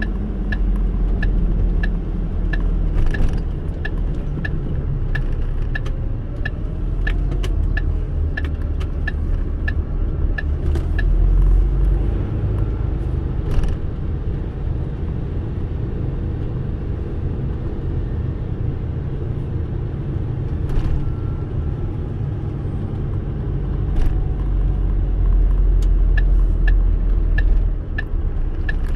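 A car driving on a wet road, heard from inside the cabin: a steady low road rumble with tyre noise and a few short knocks. A turn signal ticks evenly for about the first ten seconds and starts again near the end.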